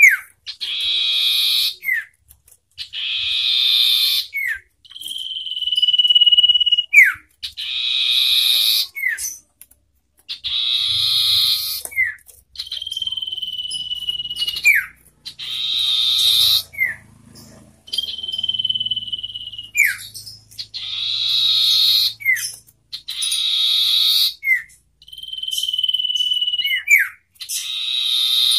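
Common ioras calling back and forth, about every two seconds. A long whistle held on one note takes turns with harsh, rasping chatter, and most phrases end in a quick falling note.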